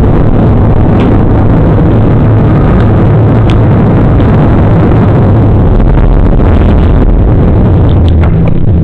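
Jet airliner at takeoff power, heard from inside the cabin: a loud, steady engine roar with a deep rumble, and a few short knocks and rattles from the cabin.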